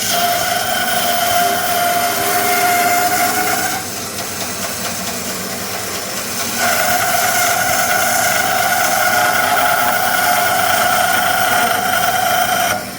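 Band saw cutting through a thick block of wenge hardwood: a steady high whine over a hiss. The whine weakens about four seconds in, comes back strongly about three seconds later, and cuts off just before the end.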